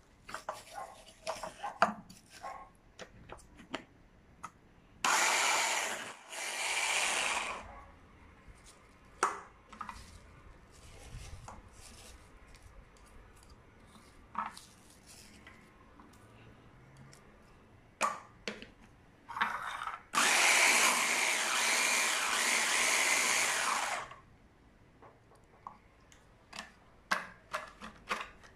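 Electric hand blender with a mini chopper jar chopping fresh spinach leaves in short pulses. It makes two runs of about a second each, then a longer run of about four seconds, with scattered clicks and knocks in between.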